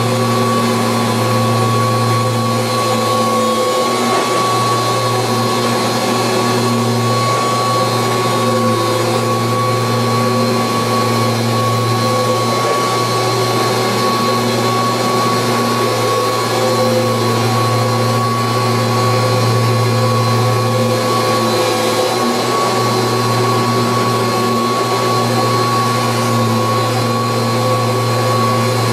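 1986 Kirby Heritage 2 upright vacuum cleaner running steadily, a loud even motor hum with a high whine held over it, with no change in speed.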